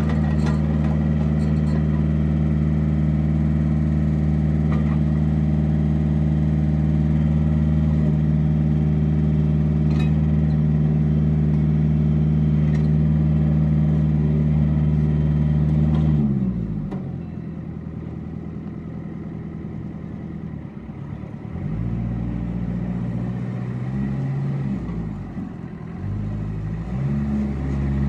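Kubota L4200 compact tractor's diesel engine running steadily at high revs, then throttled back to idle about sixteen seconds in, followed by a few short rises and falls in engine speed.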